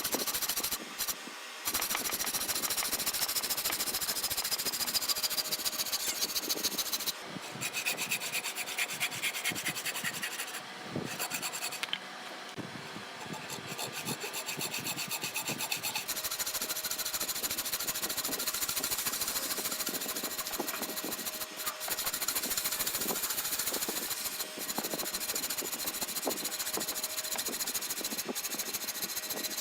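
Hardwood being abraded by a tool: a steady, rasping scrape of fast strokes, with a few short breaks.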